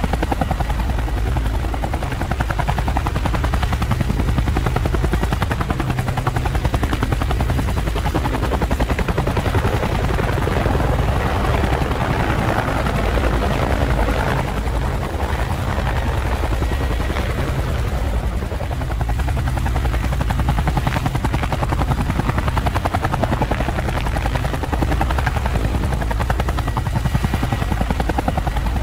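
Quadcopter drone's propellers whirring steadily, with a fast even pulsing.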